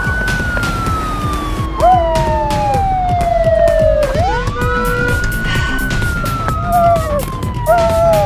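A siren wailing: each cycle rises quickly, then falls slowly over about four seconds, and it goes round twice. Short squeaky chirps sound over it a few times.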